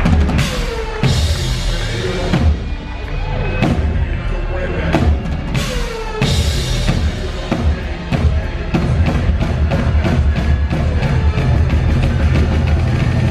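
Drum kit played live in a solo: heavy bass drum with crashing cymbals in the first half, then a fast, even run of hits in the second half.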